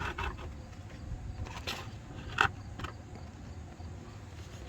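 Engine oil draining from the oil pan's drain hole into a bucket over a steady low rumble, with a few short knocks, the loudest about two and a half seconds in.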